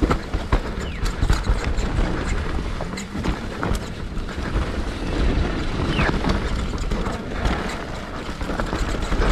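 Scott Gambler downhill mountain bike descending a muddy, rocky trail: wind rushing over the microphone, tyres rolling through dirt and over rocks, and the chain and frame rattling with frequent clicks and knocks.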